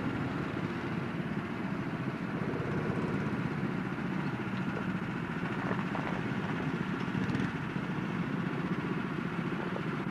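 Small go-kart engines running steadily on the track, a dense continuous engine drone.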